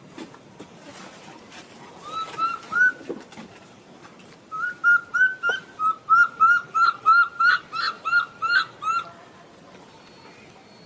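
Baby macaque giving short, high arched squeaks: a few at first, then a fast run of about a dozen, some three a second, that stops near the end. These are distress calls.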